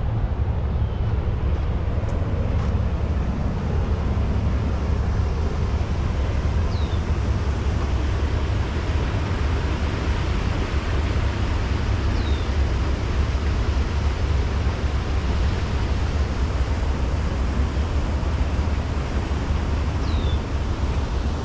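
Steady outdoor rushing noise with a deep, constant low rumble, and a bird giving a short, high, falling call three times, several seconds apart.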